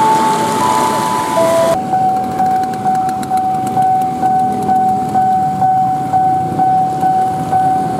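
Railway level-crossing warning bell ringing: a steady electronic tone that pulses about twice a second. Before it, in the first two seconds, a few held tones step between different pitches and then cut off abruptly.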